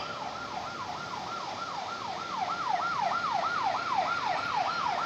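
Electronic siren in yelp mode: a rapid up-and-down wail repeating about four times a second, growing a little louder midway.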